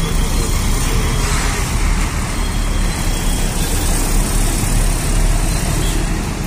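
Diesel engine of a large coach running close by, a steady loud low rumble mixed with road traffic noise.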